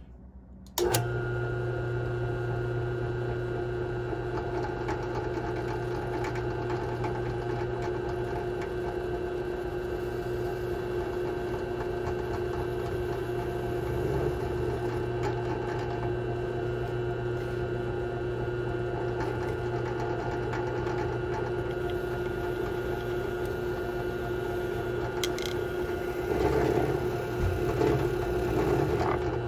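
A benchtop drill press switched on about a second in and running steadily, its motor humming with a steady whine. An end mill is cutting into the plastic housing of a Volvo ABS module, with rougher, louder cutting noise near the end.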